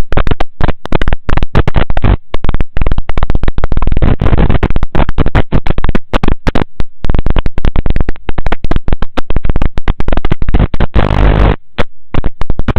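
Loud, harsh crackling static that chops in and out many times a second, with a thicker burst of hiss near the end.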